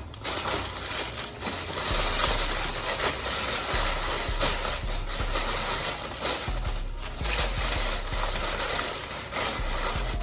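Packaging material crinkling and rustling continuously as it is handled and pushed into a package.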